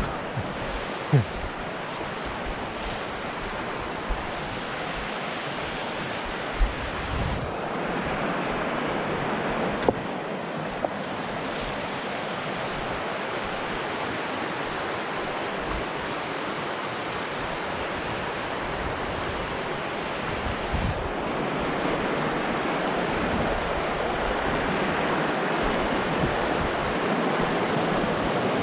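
River water rushing steadily over rocks in a mountain stream, with a few sharp clicks.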